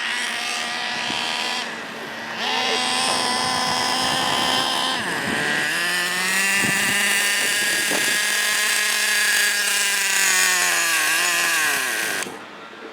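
Traxxas Revo 3.3's small two-stroke TRX 3.3 nitro engine running at a high, buzzing pitch that steps up a couple of times. Near the end the pitch sags and the engine stops, at the end of its first tank of fuel in a break-in run.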